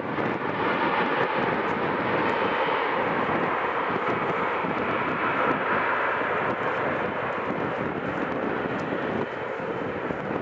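Boeing 777-300ER's General Electric GE90-115B turbofan engines running at taxi thrust: a steady rushing jet noise that grows a little quieter near the end.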